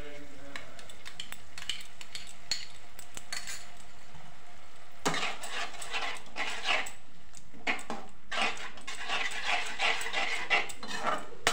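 A metal spoon stirring and scraping chopped onion, capsicum and green chilli frying in oil in a pan, just after tomato sauce is added. There are light scrapes at first, then from about halfway busier stirring with sizzling and frequent short scrapes.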